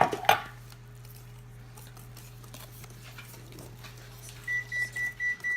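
An oven's electronic control panel beeping: about five quick, high, identical beeps near the end, as the keypad is pressed to set the preheat temperature. A steady low hum runs underneath.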